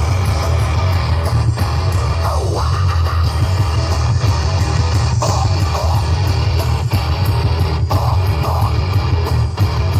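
Rock music with guitar played loud through a bass-heavy sound system, the low bass strong and constant throughout.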